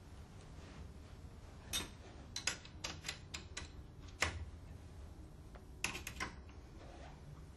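Steel open-end spanner clicking against the nuts and screws of a stainless-steel valve's actuator bracket as the upper nuts are turned: about a dozen sharp metallic clicks, irregularly spaced, in a cluster from about two to four seconds in and another near six seconds.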